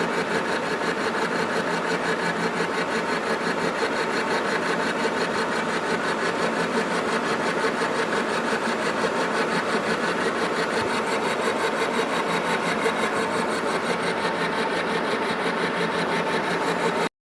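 Machine tool running steadily while taking a light cut in metal, with a fast, even ticking over a constant mechanical noise.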